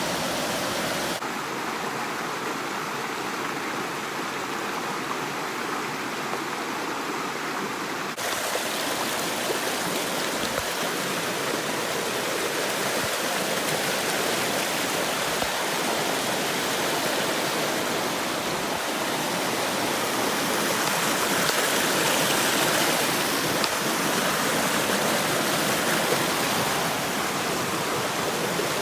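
Creek water rushing and splashing over rocks, a steady wash of noise. It changes character abruptly about a second in and again about eight seconds in, and swells a little near the end.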